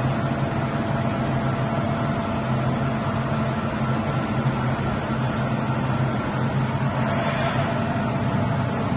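Asquith Butler Power Centre HPT multi-axis machining centre running: a steady mechanical hum with a few held low tones over an even machinery noise.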